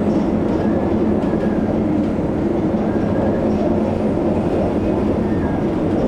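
Steady low drone of a ship's engines and machinery aboard the ferry Maersk Anglia, with a constant hum and rumble running through the hull.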